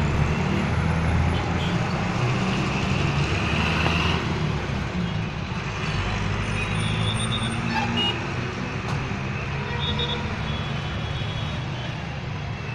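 Heavy diesel engines of an excavator and truck running steadily under work, with a continuous low rumble.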